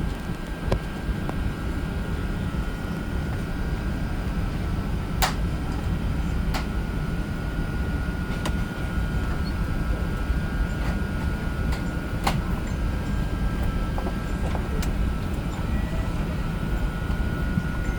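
Airbus A380 cabin ambience at the gate: a steady rumble of the air-conditioning with a thin, steady high whine, and a few sharp clicks scattered through it.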